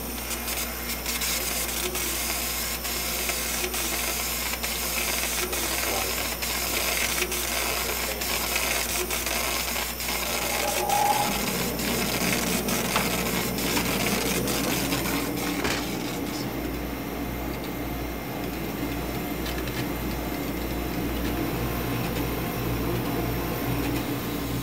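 Laser engraver at work: a steady whir of its fan and air assist with the gantry motors driving the head, and regular ticks about twice a second as the head moves. About two-thirds of the way through, the ticking stops and a lower, steadier hum carries on.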